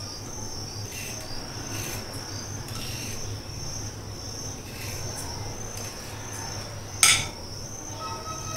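Hand peeler scraping the skin off a cucumber in soft, repeated strokes, over a steady high-pitched trill. A sharp click about seven seconds in.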